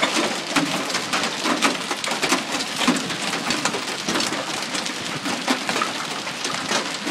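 Hail and rain pelting pavement and parked cars: a dense, steady hiss studded with many sharp clicks of hailstones striking.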